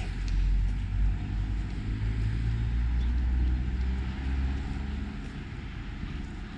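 A road vehicle passing close by, its low engine rumble swelling and then fading away about five seconds in.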